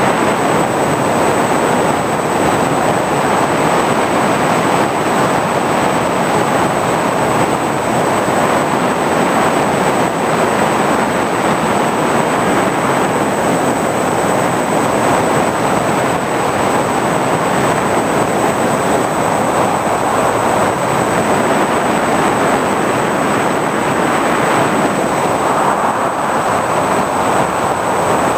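Steady whir of an FPV drone's electric motors and propellers mixed with wind rush, as picked up by the camera on board, holding an even level throughout with a thin high whine underneath.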